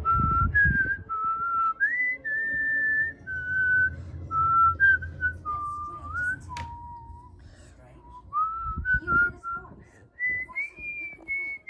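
A person whistling a slow tune, with held notes that step up and down in pitch. A sharp click comes about six and a half seconds in.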